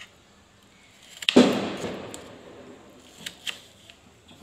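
Kitchen knife cutting a peeled potato into fingers on a bamboo cutting board. There is one loud knock about a second in that trails off slowly, and two quick knocks near the end.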